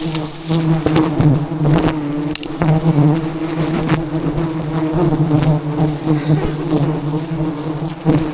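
A dense swarm of wild honeybees buzzing loudly and continuously around their hive, the many wingbeats blending into a steady low drone with rising and falling whines of single bees passing close, and scattered light clicks and knocks.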